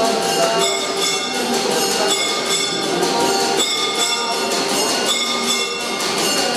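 Puja bells ringing continuously, struck rapidly and repeatedly, as the worship bells of an aarti.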